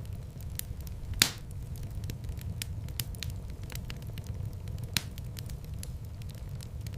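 Wood fire burning in a fireplace: a steady low rumble of flames with frequent small crackles, and a loud pop about a second in and another about five seconds in.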